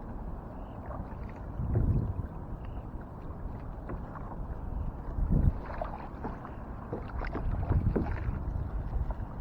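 Water splashing and sloshing around a kayak, with a few louder splashes, over a low rumble of wind on the microphone.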